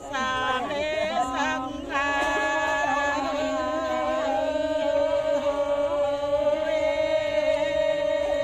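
Voices chanting in long held notes, a lower and a higher one sounding together, wavering at first and then sustained.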